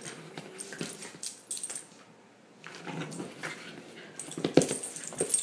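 A puppy whining and grumbling in short spells while play-fighting with a cat, among sharp clicks and knocks from the scuffle. There is a short lull about two seconds in, and the loudest knock comes about four and a half seconds in.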